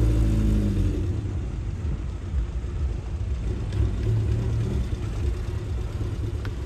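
A motor vehicle engine passes close by at the start, its pitch dropping slightly over about a second, then a steady low rumble continues.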